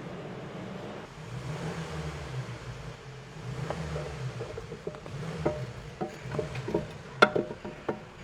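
Metal clinks and a few sharp knocks as a new front wheel hub assembly is fitted into the steering knuckle, over a low wavering hum. The sharpest knock comes about seven seconds in.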